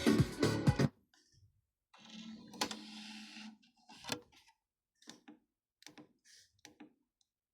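Music playing from the JVC KD-R302 car CD radio stops about a second in. The unit's CD mechanism then runs briefly with a low motor whir and a couple of sharp clicks, followed by a few faint clicks.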